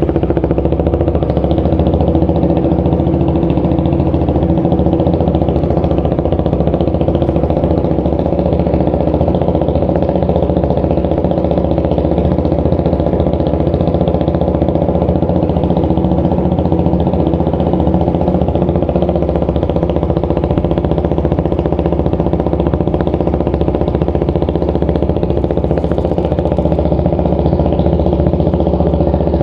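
KTM RC single-cylinder engine idling steadily through an aftermarket Yoshimura R-11 slip-on canister with a three-hole Toce end tip.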